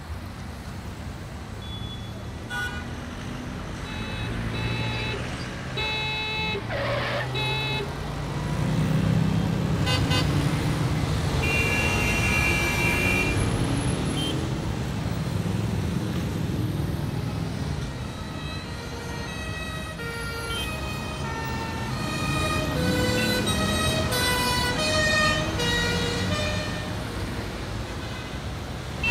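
Road traffic soundscape: a steady rumble of engines and tyres with car horns honking in short tones, thickest near the end, and one tone gliding steeply down in pitch about seven seconds in.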